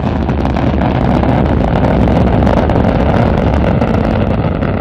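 Rocket engine firing, a loud steady noise heavy in the low end that begins to fade near the end.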